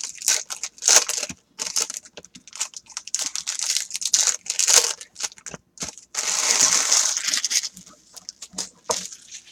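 Foil wrapper of a Topps Chrome Mini trading-card pack crinkling and tearing as it is ripped open by hand. There is a longer, louder stretch of crinkling about six seconds in.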